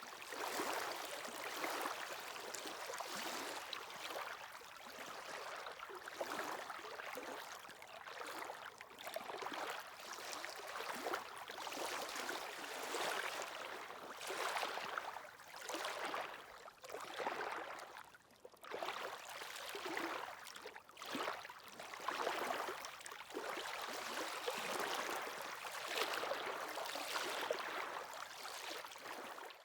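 Small sea waves washing and lapping at the shore, an irregular rise and fall of water noise with a couple of brief lulls past the middle.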